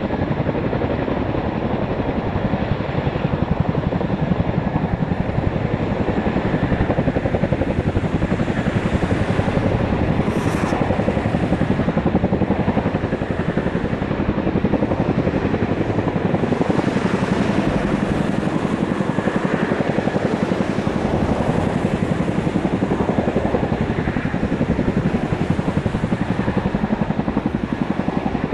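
Boeing CH-47 Chinook tandem-rotor helicopter hovering, its two rotors beating in a steady rapid throb over the whine of its twin turboshaft engines.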